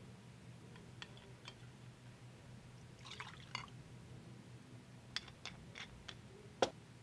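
Liquor poured from a bottle into a glass tumbler: a short splash of liquid about three seconds in, a few light ticks and drips, and a sharper knock near the end. A steady low hum runs underneath.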